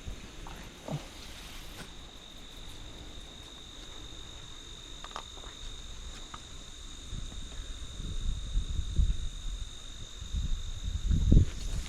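Insects trilling steadily in one unbroken high-pitched tone. Low rumbling bumps on the microphone come in from about eight seconds in, the loudest just before the end.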